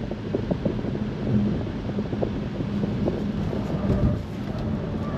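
Electric car driving through a cone course at about 60 km/h, heard from inside the cabin: a steady rumble of tyres on the concrete with some wind.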